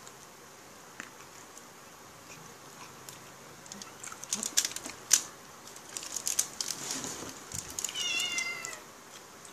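Close eating noises: a run of sharp clicks and wet smacks from chewing and tearing grilled chicken by hand. Near the end a cat meows once, a short wavering call.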